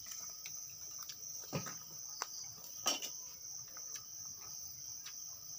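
Night insects chirring: a steady, high-pitched trill, with a few faint clicks and knocks scattered through it, the sharpest about three seconds in.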